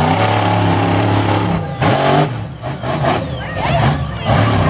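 Monster truck engine running loud under throttle as the truck drives. Its pitch drops and climbs again about two seconds in, then rises once more near the end.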